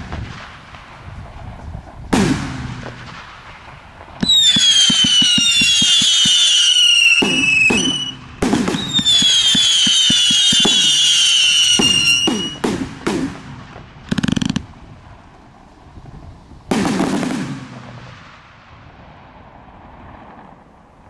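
TB201 288-shot professional fireworks cake firing. A bang comes about 2 s in. From about 4 s to 12 s there are two long runs of loud, overlapping shrill whistles that fall slightly in pitch, with a short break near 8 s. A few more bangs with an echoing rumble follow, the last about 17 s in, and the sound dies away.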